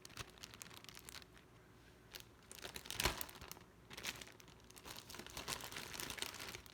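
Plastic bag crinkling and rustling in irregular bursts as food is packed into it by hand, with the loudest rustle about three seconds in.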